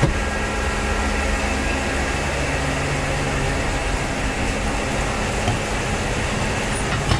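Steady mechanical drone of grain-handling machinery at a corn dryer running, with a low hum and a sharp click at the very start.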